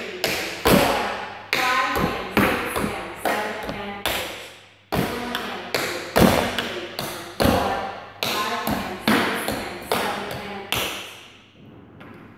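Tap shoes striking a wooden floor in quick runs of taps with short gaps between them, stopping about 11 seconds in.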